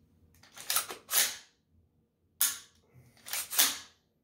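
AR-15 with a Fostech Echo Sport binary trigger being dry-fire function-checked in fire (semi) mode: a series of sharp metallic clacks from the trigger, hammer and action, some in quick pairs.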